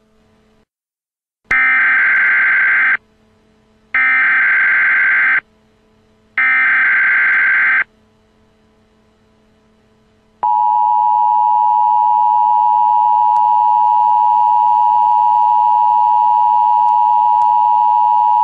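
Emergency Alert System tones: three short bursts of digital data noise (the SAME header), then, about ten seconds in, the steady two-tone EAS attention signal.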